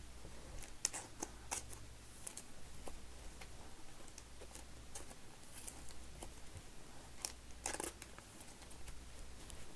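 Baseball trading cards being handled and sorted on a table: scattered light clicks and scrapes of card stock, with a longer scrape about eight seconds in, over a faint low hum.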